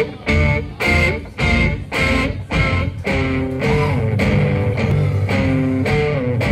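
Guitar music: chords struck at an even pulse, about one every 0.6 seconds, for the first three seconds, then held notes that bend in pitch over a steady low line.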